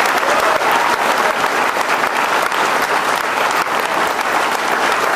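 An audience of many people applauding steadily, a dense, even clatter of clapping hands.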